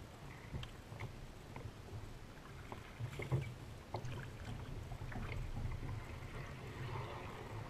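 Water lapping and sloshing against the hull of a Wilderness Systems Ride 135 kayak moving through a shallow creek: a steady, uneven low rumble with scattered light ticks and clicks, and a sharper knock a little over three seconds in and another near four seconds.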